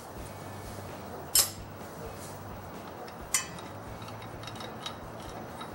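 Two sharp metallic clinks about two seconds apart, from metal hand tools being handled and knocked together, with a faint steady hum underneath.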